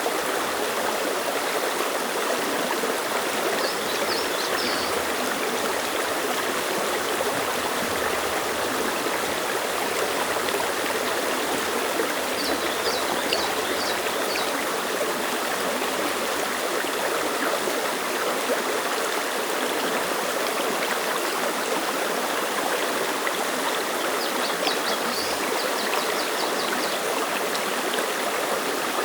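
Clear mountain stream rushing and splashing over rocks, a steady even babble. Three short series of quick, high chirps sound over it: about four seconds in, around the middle, and near the end.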